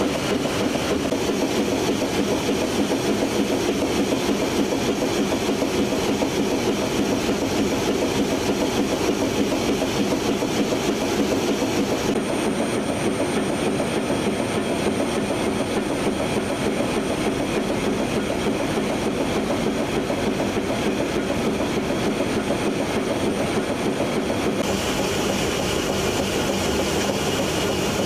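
Adult pull-up diaper production machine running at full speed: a steady, dense mechanical rattle of rollers, belts and drums. The tone of the noise changes abruptly about twelve seconds in and again near the end.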